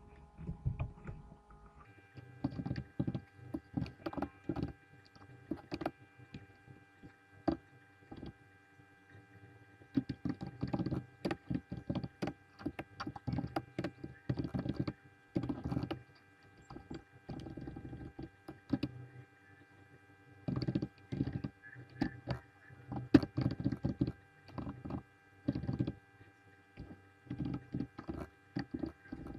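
Computer keyboard typing in irregular bursts of keystrokes, with a steady electrical hum underneath.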